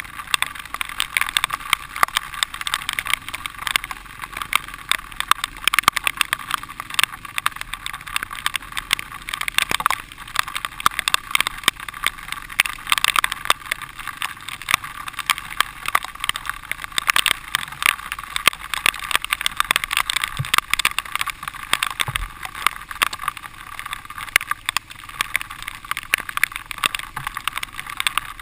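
Dirt bike ridden over a rough, muddy trail, heard from a rider-mounted camera: the engine runs steadily under constant rattling and knocking from the bumps.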